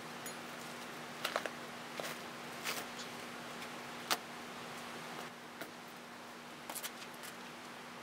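Scattered short scrapes and clicks of hands working packing-foam and cardboard forms loose from a newly cast cement rocket stove's openings, over a faint steady hum.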